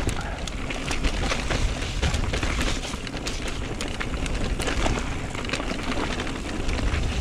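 Mountain bike being ridden down a dirt jump line: steady tyre and riding noise over the trail, with frequent small knocks and rattles from the bike.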